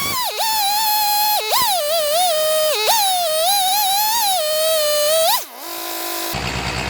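A single wavering, theremin-like musical tone that glides up and down for about five seconds, with a brief lower steady note after it. The chainsaw engine idling comes back about six seconds in.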